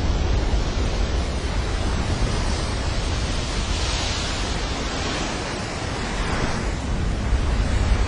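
Huge ocean wave breaking, its whitewater rushing, mixed with wind on the microphone: an even hiss over a deep rumble that swells about four seconds in.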